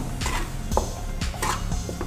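Wooden spatula stirring sugar into cooked broken-wheat rava in a non-stick kadai: a few soft scrapes and taps against the pan, over background music.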